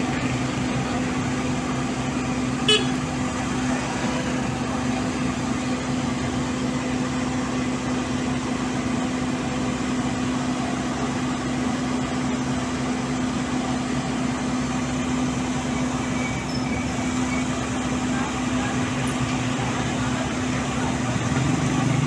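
A heavy diesel engine runs steadily at a constant idle. There is a short sharp click or beep about three seconds in, and a motorcycle engine joins near the end.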